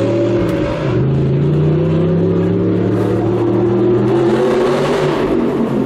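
Sports car engine and exhaust accelerating, heard from inside a following car's cabin. The pitch drops briefly about a second in, then climbs steadily.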